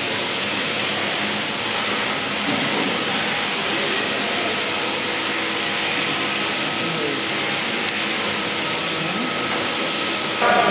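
Electric sheep-shearing handpiece, driven through an overhead down tube, running steadily as it clips the fleece off a sheep's belly: a continuous even whirring hiss.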